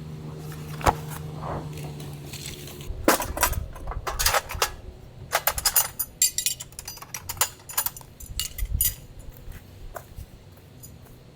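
Hard, partly metallic objects clinking and clattering against each other in a quick irregular run of knocks and rings, busiest in the middle and thinning out near the end. A low steady hum underneath stops about three seconds in.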